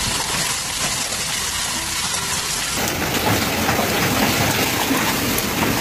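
Heavy hail and rain pelting down in a strong wind: a dense, steady hiss with a low rumble. About three seconds in it switches to another recording in which scattered sharp hits stand out from the hiss.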